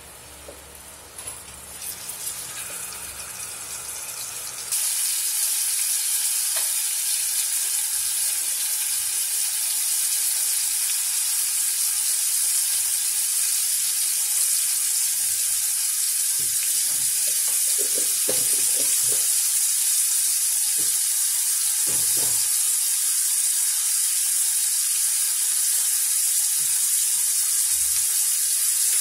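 Beef shank steaks sizzling in a hot cast-iron skillet. The sizzle jumps suddenly louder about five seconds in, as a second steak goes into the pan, then holds steady, with a few soft knocks from handling in the middle.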